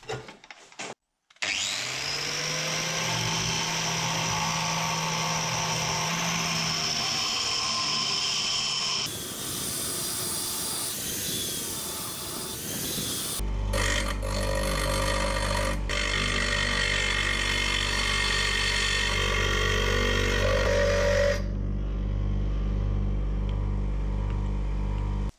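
A corded angle grinder spins up about a second and a half in and grinds a square high-speed-steel bar clamped in a vise. About thirteen seconds in it changes abruptly to a Parkside bench grinder running with a steady low hum as the steel is shaped on its wheel. The grinding noise eases off a few seconds before the end while the motor keeps running.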